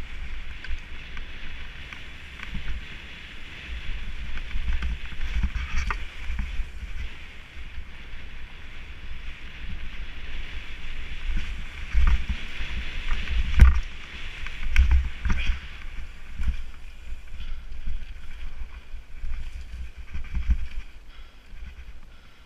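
Nukeproof Mega TR mountain bike riding fast down a dirt singletrack, heard from a head-mounted GoPro. Wind buffets the microphone and the tyres hiss on the dirt. Knocks and rattles come from the bike over bumps, the sharpest a little past the middle.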